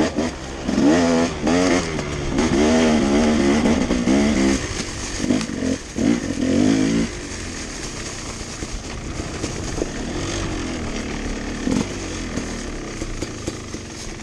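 Dirt bike engine revving up and down in quick throttle bursts, then settling to a steadier, quieter running about seven seconds in as the bike slows.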